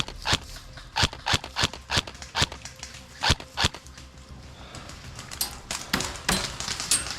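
Airsoft guns firing in an irregular string of sharp cracks, a dozen or so close together in the first few seconds, then a few fainter shots near the end.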